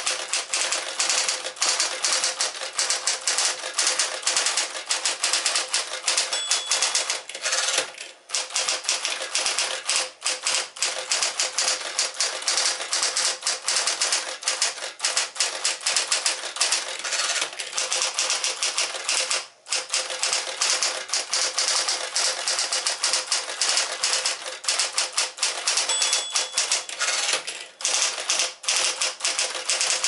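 Fast, continuous typing on a 1962 Sears Tower electric typewriter, a Smith-Corona 5TE variant: rapid key and typebar strikes over the machine's steady motor hum, pausing briefly twice.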